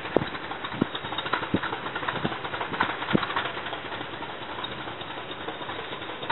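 Class 20 and Class 37 diesel locomotives running, heard at a distance as a steady rumble, with a few sharp clicks in the first three seconds.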